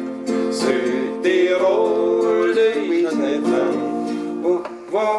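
Acoustic guitar strummed as accompaniment to voices singing a German folk song.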